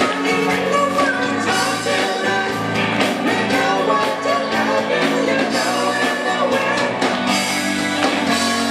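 A live rock band playing a song, with men singing lead over electric guitar, drums and keyboards.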